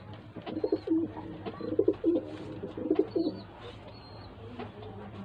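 Homing pigeons cooing in the loft: a run of low, pulsing coos over the first three seconds or so, then quieter.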